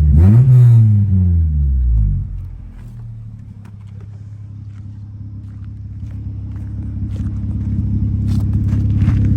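1996 Honda Civic hatchback's four-cylinder engine, fitted with aftermarket headers and a way too loud exhaust, revved briefly and then dropping back to a steady idle that grows louder over the last few seconds.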